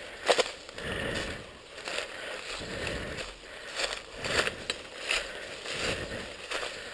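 Footsteps pushing through dense dry grass and brush: leaves, stalks and twigs rustling, crunching and crackling in an irregular run of scrapes and snaps.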